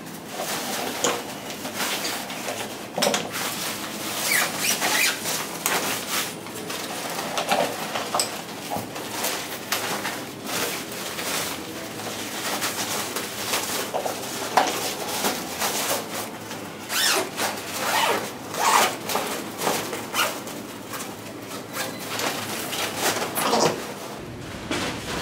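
Folded Cocolatte Iconic+ stroller being packed into its nylon backpack bag: irregular fabric rustling and scraping, frame parts knocking, and the bag's zipper being pulled closed.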